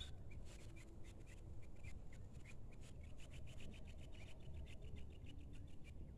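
Faint, irregular scratchy rubbing and clicking from the phone being handled and tilted upward while it records.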